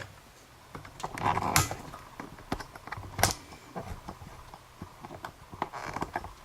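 Scattered handling clicks and knocks from a small dimple pin-tumbler lock and picking tools being worked by hand, with two sharper knocks about a second and a half and three seconds in.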